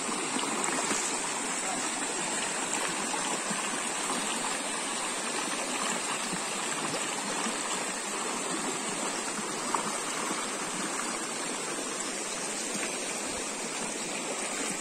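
Shallow, rocky stream rushing over stones and cobbles: a steady, even rush of running water.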